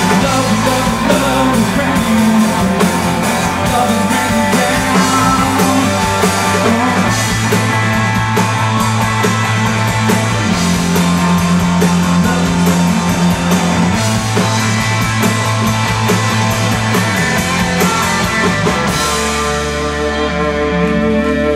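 Live rock band playing, with drums, bass and electric guitar. The drums stop about nineteen seconds in, leaving a chord ringing out as the song ends.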